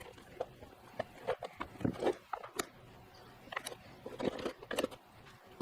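Irregular clicks and knocks of a jump box's case being handled and pulled apart once its screws are out, about eight or nine sharp taps spread unevenly.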